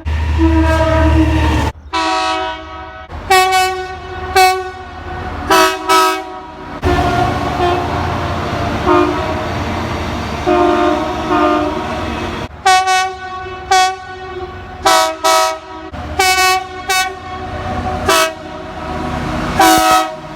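Train air horn sounding a chord in a rapid series of short blasts, with one longer held stretch in the middle, over the low rumble of a passing train.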